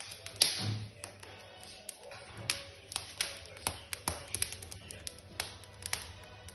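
Firewood burning in the open firebox of a brick stove-fireplace, crackling with irregular sharp snaps and pops, the loudest about half a second in.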